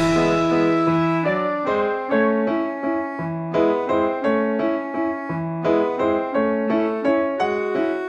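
Background piano music: a calm melody of single struck notes that ring and fade, over lower bass notes.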